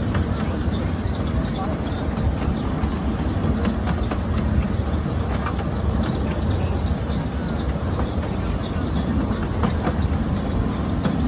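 Ride-on miniature railway train rolling along its track: a steady low rumble of wheels on rail, with scattered light clicks.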